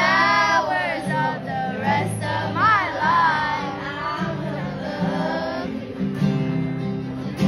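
A woman singing live into a microphone while playing an acoustic guitar, the melody sliding between long held notes over the guitar accompaniment.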